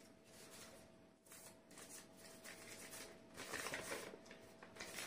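Sheets of paper rustling faintly as they are leafed through and picked up, loudest a little past halfway.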